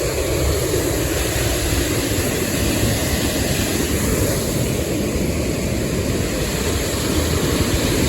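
Large waterfall: a steady, deep rush of falling water, unbroken and even throughout.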